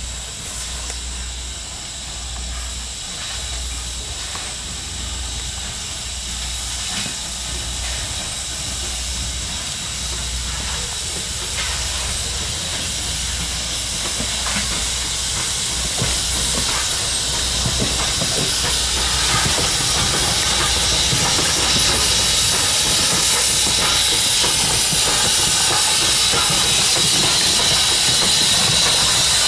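Norfolk and Western No. 475, a 4-8-0 steam locomotive, running tender-first toward and past, its steam hiss growing steadily louder as it nears.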